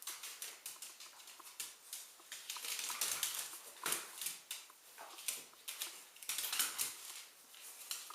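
Dogs scuffling in play: a dense run of clicks, scrapes and rustles, busiest through the middle.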